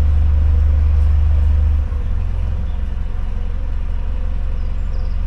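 Narrowboat diesel engine running with a deep steady throb, easing back to a quieter idle about two seconds in. Faint bird chirps near the end.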